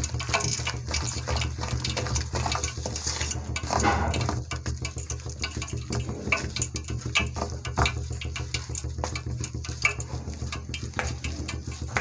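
Metal spoon stirring a wet flour-and-buttermilk batter in a steel bowl: a quick, uneven run of scrapes and clinks against the bowl.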